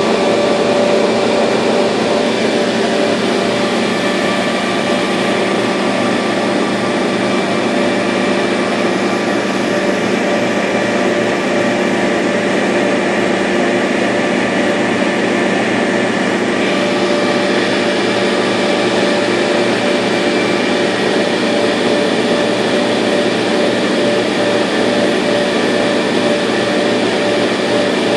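Laser cutter running while it cuts half-inch birch: a steady mechanical whir and hum with a few held tones in it.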